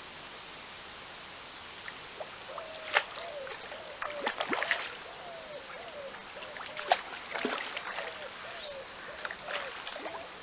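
Water splashing in a few short, sharp bursts, loudest about three and seven seconds in, as a hooked fish is played close in at the bank. Behind it, a low call repeats in short arching phrases.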